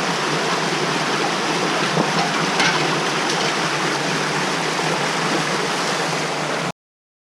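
Creek water rushing steadily, with a few faint clicks; the sound cuts off abruptly near the end.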